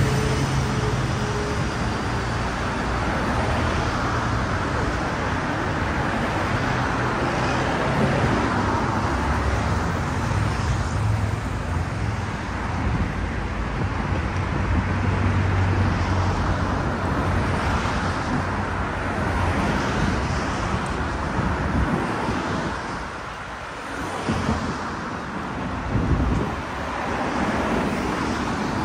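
Street traffic: motor vehicles running past with a steady low engine hum under the road noise, easing off briefly about two-thirds of the way through.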